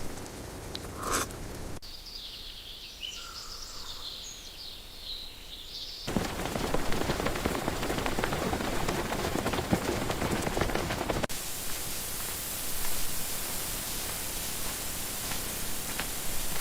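Outdoor ambience in stretches that cut off abruptly: birds chirping for a few seconds, then a steady rushing noise of rain that grows louder about six seconds in and changes tone near the middle.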